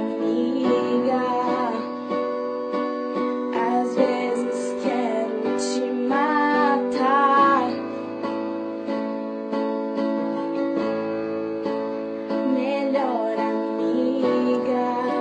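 Song music with plucked acoustic strings under a wavering melody line, without words.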